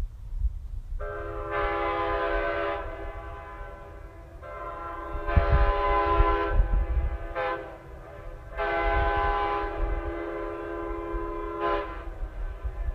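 1980s Nathan Airchime K5H five-chime train horn with a small-bore 5 bell, blown in three long blasts of about three seconds each, each a steady chord of several tones. The second and third blasts end with a brief higher blip as the air is cut off.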